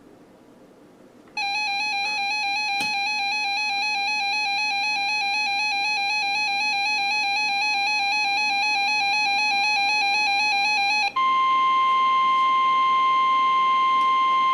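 A weather radio's warbling electronic alert tone sounds for about ten seconds, then switches suddenly to the steady NOAA Weather Radio 1050 Hz warning alarm tone, the signal that a new warning is about to be broadcast.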